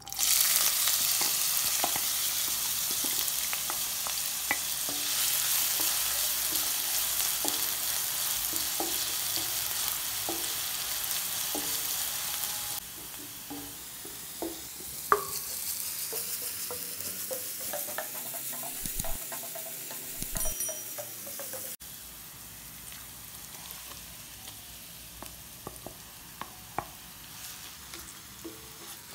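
Chopped onion hitting hot oil in a kadai and sizzling loudly at once, then frying on as it is stirred, with a wooden spatula scraping and tapping on the pan. The sizzle steps down to a quieter level about halfway through.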